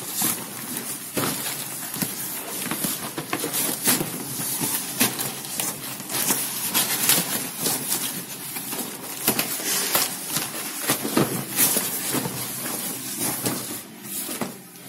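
Cardboard rustling and scraping as a printed cardboard product box is slid and worked out of a brown cardboard shipping carton: an irregular, continuous run of crackles, scrapes and light knocks.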